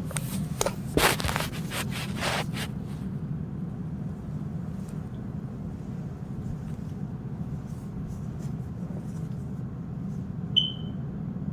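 A sleeping person snoring with a low, steady, purr-like rumble. Crackly rustling from handling the recording phone comes first, and a single short high chirp sounds near the end.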